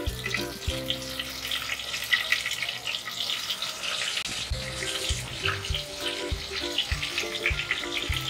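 Hot oil sizzling and crackling around masala-stuffed green brinjals as they are set into the pot to shallow fry, with background music playing over it.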